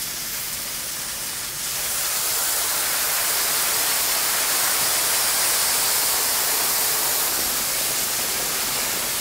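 Bone broth poured into a scorching cast-iron pot lid (솥뚜껑) of frying pork neck and kimchi, hissing and sizzling as it hits the hot metal and boils up in steam. The hiss swells about a second and a half in and then holds steady.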